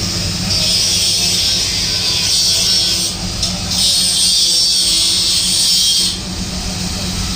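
Welding or brazing on a scooter part: a high hiss that runs for a couple of seconds, breaks off about three seconds in, and returns for about two more seconds, over a steady low hum.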